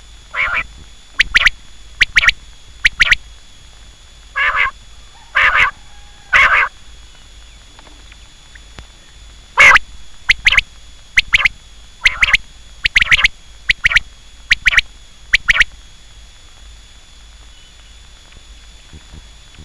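Quail calling: a series of short, sharp, high calls, some in quick pairs, repeated in bursts with a pause partway through, then falling silent for the last few seconds.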